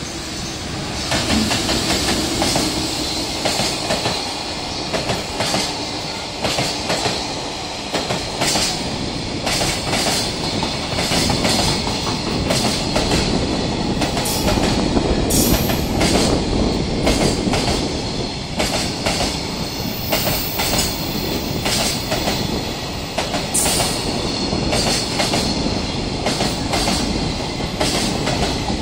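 Container freight train hauled by a JR Freight EF210 electric locomotive passing at speed: a steady rumble of steel wheels on the rails, with repeated sharp clicks as the wagons' wheelsets run over rail joints.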